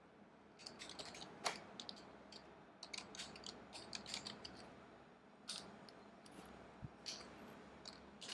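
Faint, irregular keystrokes on a computer keyboard as code is typed, starting about half a second in, with a brief gap near the middle.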